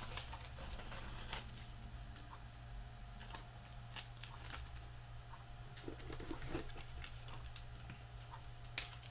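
Trading cards being handled: faint, scattered clicks and rustles over a steady low hum, with one sharper click near the end.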